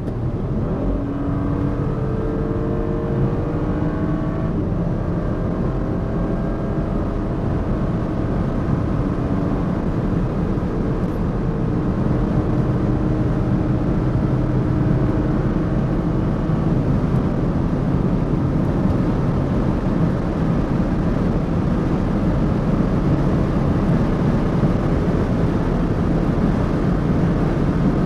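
Audi SQ5's 3.0 TFSI V6 running under load at high autobahn speed, under heavy wind and tyre noise. Its pitch creeps slowly upward in the first few seconds and the overall sound grows slightly louder.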